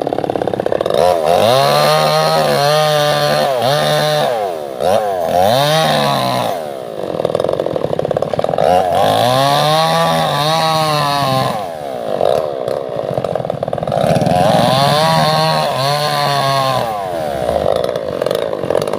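Two-stroke chainsaw running and cutting wood, its engine pitch rising and falling in about four long swells as it revs and bogs under the cut.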